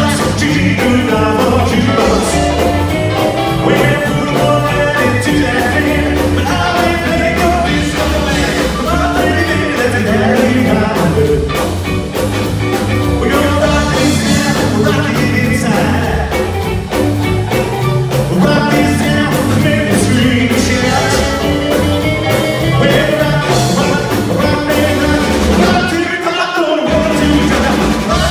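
Live rockabilly band playing: slapped upright bass, electric guitar, drums and piano, with a lead vocal. The bass and drums drop out briefly near the end.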